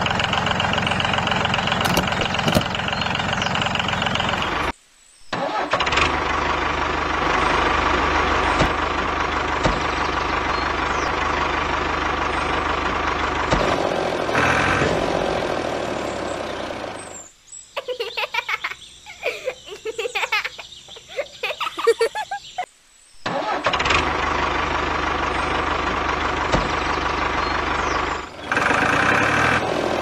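A tractor engine running steadily. It cuts out abruptly a few times. For several seconds past the middle it gives way to a different, irregular, choppy sound before the engine returns.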